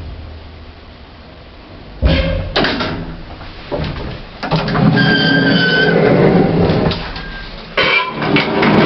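An old lift's doors: two sharp clunks, then a sliding, rumbling run with a brief high squeal in the middle, and a clatter of knocks near the end.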